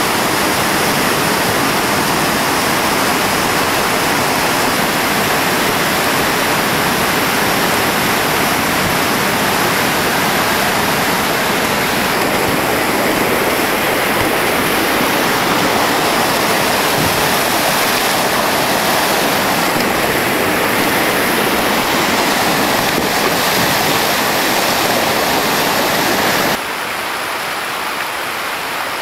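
Steady rush of whitewater pouring through a rapid on a creek running high after rain. About 26 seconds in it cuts to the quieter, lighter splashing of a small cascade.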